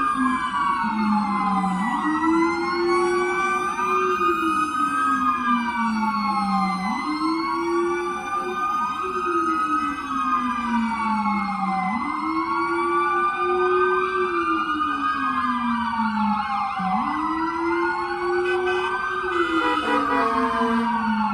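Several emergency-vehicle sirens wailing together at different pitches and out of step, each rising and falling over about five seconds; the lowest climbs quickly and sinks slowly.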